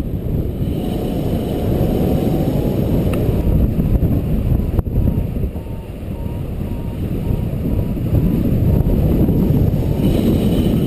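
Wind rushing and buffeting over the camera microphone of a paraglider in flight, a loud, gusty rumble. A faint repeating beep runs through the middle.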